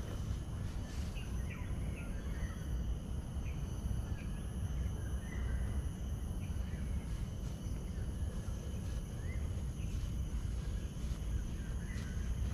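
Steady outdoor insect chorus: several continuous high-pitched tones, with scattered short bird chirps over a steady low rumble.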